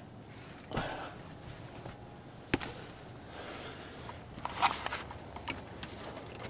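Blankets and bedding rustling as a hot-water-filled plastic bottle is tucked into a bed, with a soft thump, a sharp knock, and a burst of rustling near the end.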